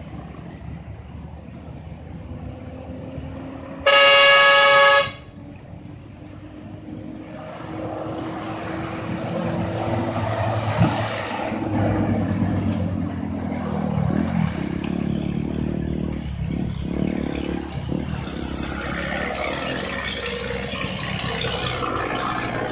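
A vehicle horn gives one loud honk of about a second, about four seconds in. Then a loaded heavy truck's engine grows louder as it pulls through a sharp bend, its pitch dipping and rising a few times, with other traffic passing.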